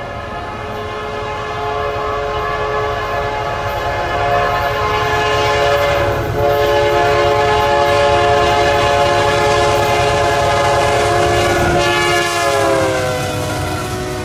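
Air horn of a GE AC44 diesel locomotive leading an intermodal freight, sounding a multi-note chord in long blasts with a brief break about six seconds in. Near the end the chord slides down in pitch as the locomotive passes, over the low rumble of the train.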